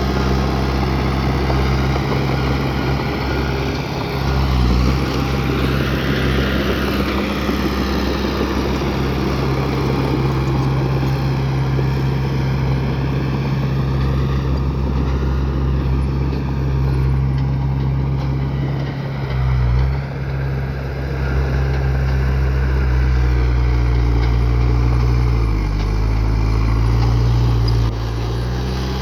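Heavy diesel engine of earthmoving machinery running steadily, its low note dipping and shifting briefly a few times.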